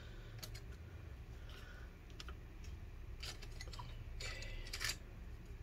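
Wooden popsicle sticks being set down on a laptop's metal screen lid: a few light taps and clicks, with a short scraping rustle near the end.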